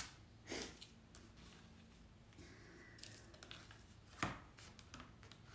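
A few faint taps and light scrapes from a clear plastic ruler and chalk being handled on a stretched canvas, the loudest tap about four seconds in.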